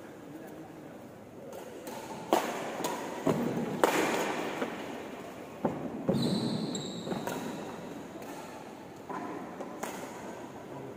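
Badminton rackets striking a shuttlecock in a doubles rally, sharp hits echoing in a large hall, about five in quick succession, then a couple of softer ones near the end. A short high squeak comes just after the last of the quick hits.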